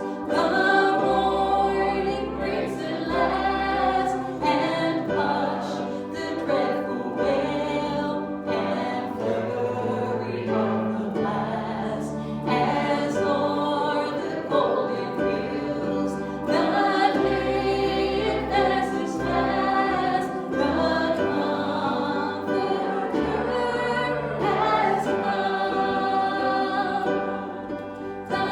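Church congregation singing a worship hymn together with instruments playing along, including a bass line that moves to a new note every second or two.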